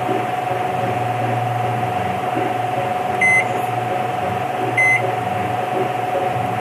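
Microwave oven keypad beeping twice, a short high electronic beep at each key press as the cooking time is entered, about a second and a half apart. A steady electrical hum with a constant tone runs underneath.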